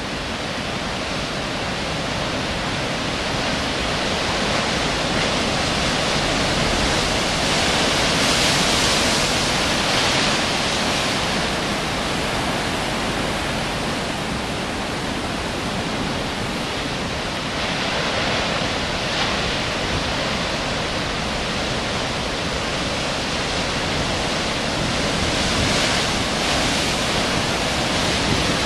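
Heavy ocean surf breaking and washing in over rocks: a continuous rushing of white water that swells louder about eight to eleven seconds in and again near the end.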